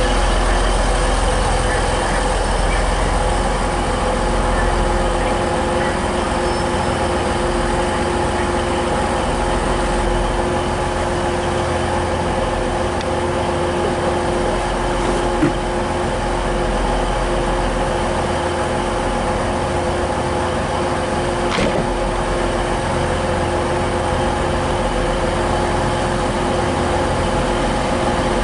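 Train engines and equipment giving a steady, many-toned hum over a low rumble, with a couple of sharp clicks midway.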